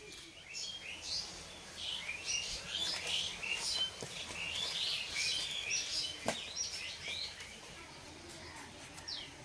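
Birds chirping and twittering in quick, overlapping short calls, which thin out near the end. Two sharp clicks about four and six seconds in, as green mango peel is cut on a bonti blade.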